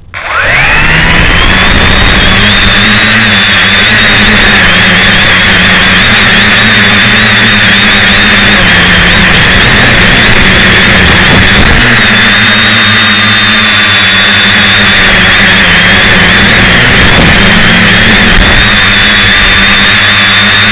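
Electric motors and propellers of a small V-tail quadcopter, picked up by a camera strapped directly to the craft's battery: the motors spin up from rest with a rising whine in the first second, then run loud and steady in flight, the high whine wavering slightly with throttle. A thin fixed high tone runs beneath it.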